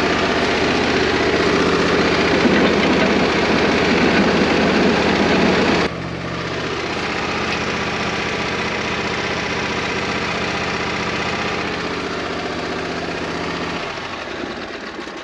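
An engine running steadily close by, with an even low hum. It drops off abruptly about six seconds in, then carries on somewhat quieter and fades near the end.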